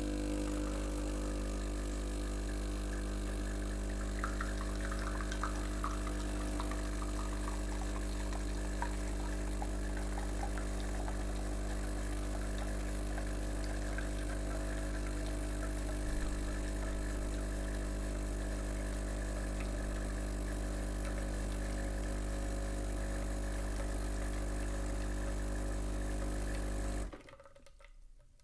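A machine motor running with a steady hum and several fixed tones, cut off abruptly near the end.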